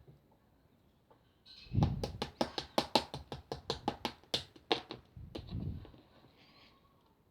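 Slime being pressed and worked by hand, giving a quick run of sharp clicking pops, about six a second, for roughly three seconds. Softer handling sounds come at its start and end.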